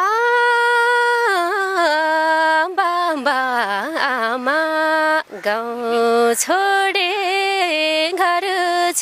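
A young woman singing a Nepali folk song solo and unaccompanied, holding long notes with ornamented turns between them, pausing briefly for breath.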